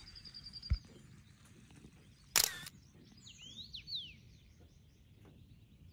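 Quiet open-country ambience. One short, sharp click about two and a half seconds in, and a few quick rising and falling bird calls a second later.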